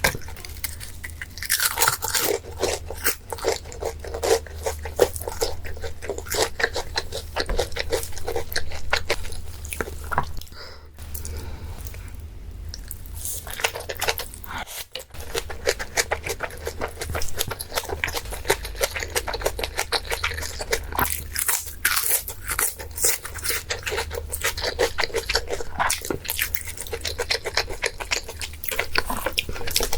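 A small dog chewing and crunching food close to the microphone: a dense run of crisp bites and wet chewing, easing off for a few seconds around the middle.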